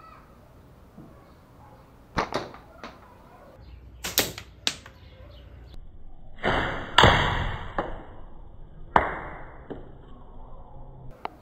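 Slingshot shots: sharp cracks of the rubber bands snapping forward and knocks of the small ball striking the target. There is a pair about two seconds in, a few more around four seconds, a louder, longer crack near seven seconds and another near nine.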